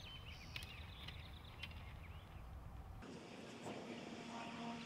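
Faint outdoor ambience: small birds chirping in quick short notes over a low wind rumble that cuts off abruptly about three seconds in.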